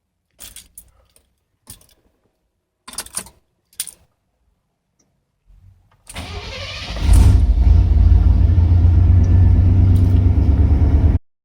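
A few clicks and knocks, then a 1994 GMC Sierra 3500's 5.7 L V8 is cranked and catches about seven seconds in. It runs loud and steady, then cuts off suddenly near the end.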